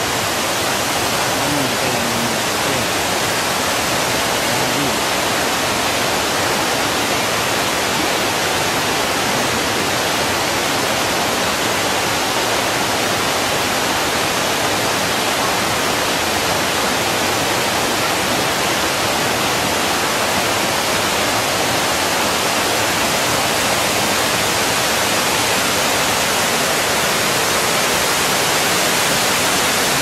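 Imose Falls (Imose-no-taki) waterfall rushing: a loud, steady, even hiss of falling water.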